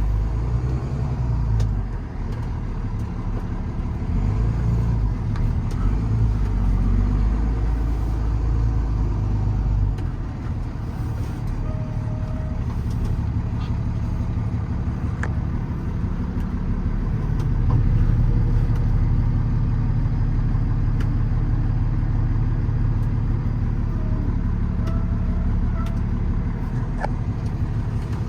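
Kenworth T370 truck's Paccar PX9 inline-six diesel running under way with road noise, its sound shifting in load and pitch a couple of seconds in, about ten seconds in and again near eighteen seconds.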